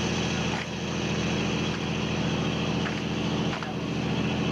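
Fishing boat's engine running at a steady drone, with a high whine over it that fades somewhat about half a second in.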